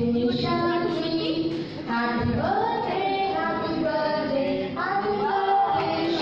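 Women's voices singing a song together, in a run of held, steady notes.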